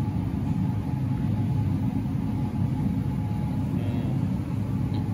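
Steady low rumble with a faint hum: the background machinery noise of a large store's interior.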